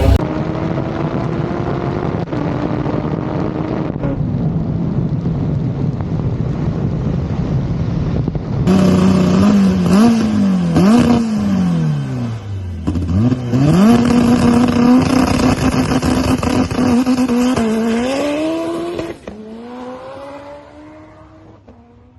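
Turbocharged Honda B18 four-cylinder engine of a drag-racing Civic running. For several seconds it holds a steady, slowly climbing note. It then gets louder and revs, the pitch swinging down and up several times, before it drops off suddenly and fades about three seconds before the end.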